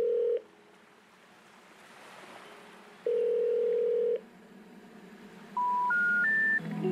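Telephone tones: a steady tone lasting about a second sounds twice, about three seconds apart, then three short beeps step up in pitch near the end. The three rising beeps are the special information tone that comes before a 'number not in service' recording.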